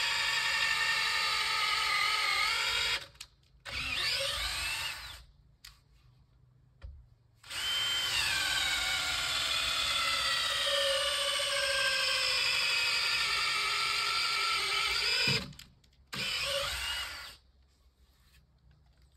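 Power drill running in bursts: a run of about three seconds, a short burst, a long run of about eight seconds whose whine falls in pitch near its start, then one more short burst before it stops.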